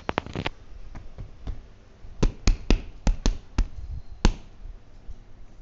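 Sharp plastic clicks and taps of LEGO pieces being handled on a baseplate. A few come right at the start, then a quick run of about seven in the middle.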